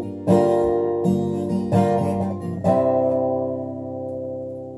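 Acoustic guitar strummed, a few chords, the last one a little under three seconds in and left to ring out and fade.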